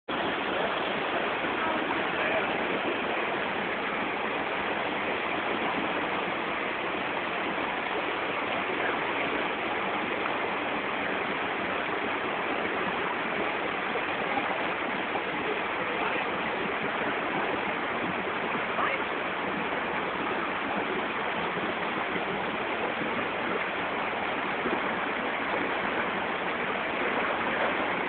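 Waterfall gushing, a steady rush of water.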